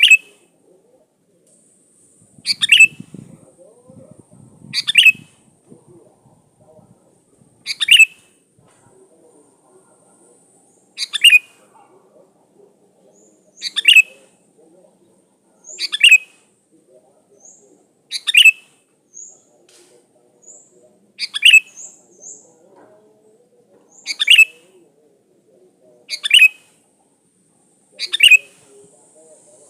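Sooty-headed bulbul (kutilang) calling: about a dozen short, loud calls repeated every two to three seconds, with faint high chirps between some of them.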